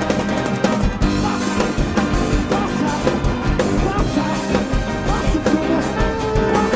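Live gospel band playing an upbeat piece with a drum kit keeping a steady beat under held keyboard chords, with no words sung.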